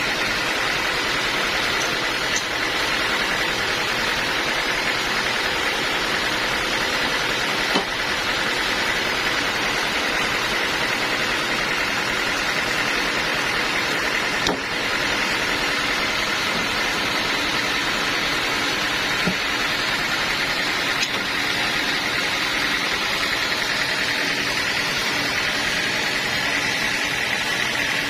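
Band sawmill running and sawing a teak log: a steady mechanical noise with a constant high whine, with a couple of faint ticks partway through.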